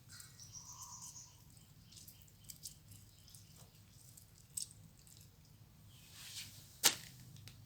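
Quiet background with a faint chirp, like a small bird's, about half a second in, a few light scattered clicks, and one sharper click near the end.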